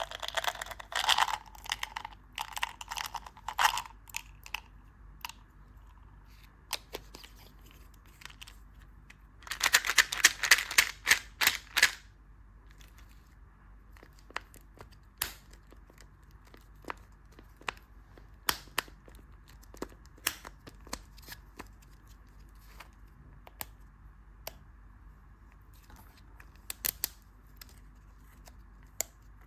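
Candy wrapper being crinkled and torn open by hand, in two bouts: one in the first few seconds and another from about ten to twelve seconds in. Scattered single clicks and taps fall between and after them.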